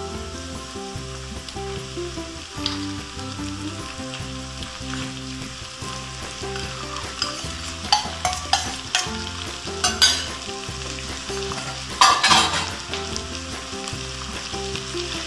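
Minced pork and beef sizzling as it goes into a hot wok of olive oil and onions. Partway through and again near the end come several sharp clinks and knocks as the last of the meat is scraped and tapped out of a metal bowl into the pan.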